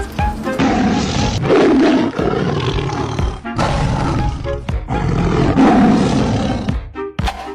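Loud animal roars, two long ones standing out, over background music.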